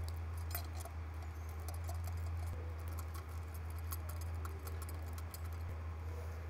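Light, irregular metallic clicks of a hand tool undoing the crankcase bolts on a 49cc moped engine, over a steady low hum.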